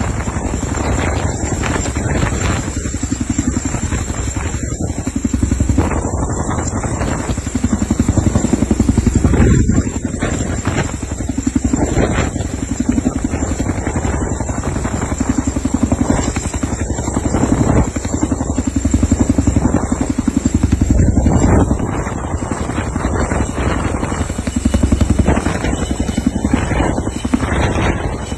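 Helicopter rotor beating with rapid, even pulses and a steady high whine, swelling louder and easing off several times.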